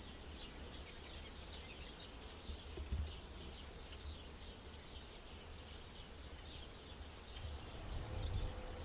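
A bird singing a long series of quick, repeated arching notes, about two a second, that fades out after about seven seconds. A low rumble runs underneath.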